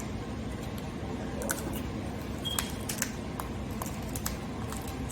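Scattered small clicks and cracks of snow crab shell being worked and pried open by hand, with one brief high squeak about two and a half seconds in.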